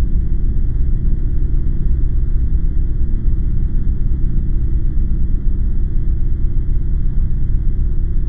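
A steady low rumble with no break or change.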